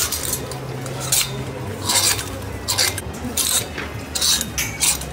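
Clothes hangers scraping along a metal clothing rail as garments are pushed aside one by one, about seven short scrapes roughly evenly spaced.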